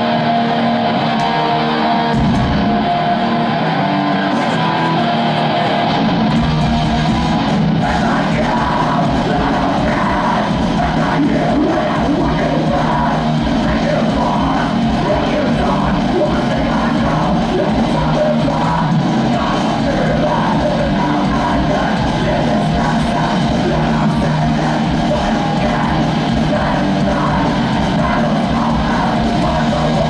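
Heavy metal band playing live through a PA: electric guitar riffing with little bass at first, then drums and bass guitar come in about six seconds in and the full band plays on, with shouted vocals over it.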